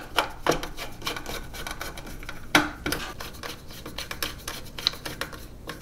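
Small screws being turned back into a 3D printer's metal motherboard cover plate: a run of light clicks and scraping, with a sharper click about two and a half seconds in.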